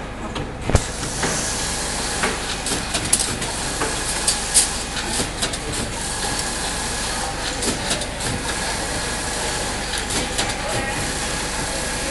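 Automatic coil winding machine with auto loader running: a steady mechanical hum and hiss with frequent sharp clicks and clacks from its moving parts.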